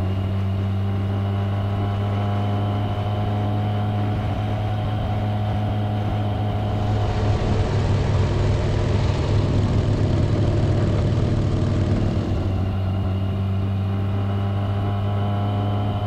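Motorcycle engine running at a steady cruise, a constant drone. A louder rushing noise joins in for several seconds in the middle.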